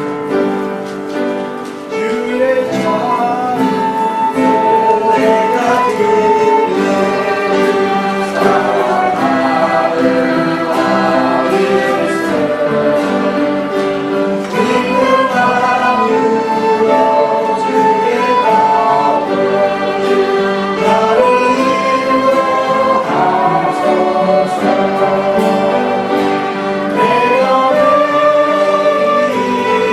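Congregation singing a hymn together with instrumental accompaniment, in slow held notes.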